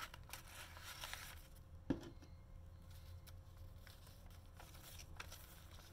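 Faint rustling and sliding of paper and cardstock as hands handle a paper tag in a journal pocket, with one sharp tap about two seconds in, over a low steady hum.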